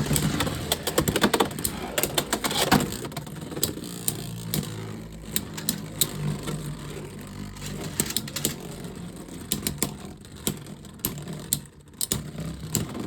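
Two Beyblade X spinning tops whirring in a plastic stadium just after launch, with a steady low hum and many sharp plastic clacks as they collide and hit the stadium walls.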